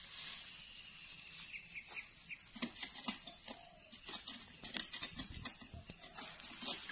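Irregular light cracks, clicks and rustling, with a short run of high chirps about one and a half to two and a half seconds in.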